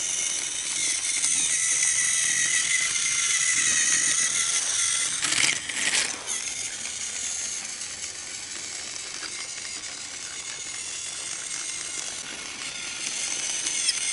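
Battery-powered toy train's small electric motor and gears whining steadily as it runs along flexible plastic track, with a brief clatter about five seconds in. The whine grows quieter after about seven seconds.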